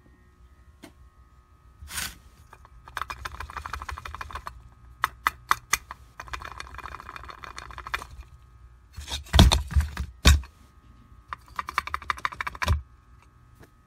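Damaged grid heater plate from a Cummins 6.7L diesel being jiggled by hand, its loose terminal and bolt rattling and clicking in short bursts, with a few louder knocks about two thirds of the way through. The looseness is the sign of a bolt burnt or missing inside the plate.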